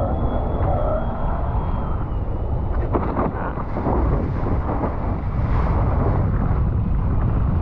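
Wind buffeting the microphone over choppy sea water rushing and splashing, a steady low rumble with short splashy surges.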